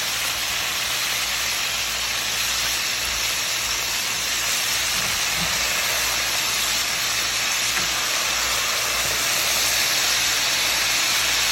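Chicken deep-frying in hot oil: a loud, steady sizzle.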